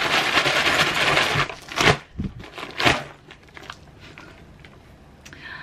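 Dyneema composite fabric bear bag being crumpled and crinkled by hand. There is a dense crackling for about a second and a half, then two sharper, louder crackles about a second apart, then faint rustling that dies away.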